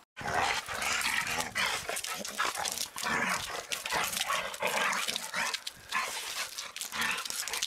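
Two dogs play-fighting, barking and yipping at each other in a fast, irregular string of sounds.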